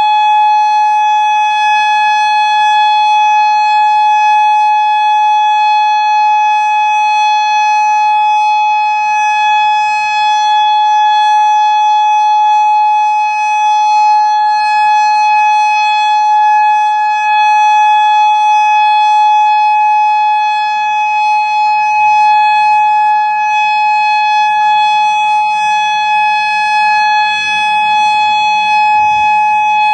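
Federal Signal Modulator 6048 outdoor warning siren sounding the steady Alert signal: one loud, unwavering tone, swelling slightly now and then.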